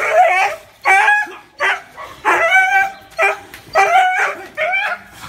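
Dog barking repeatedly, about eight barks in quick succession, one of them drawn out longer near the middle.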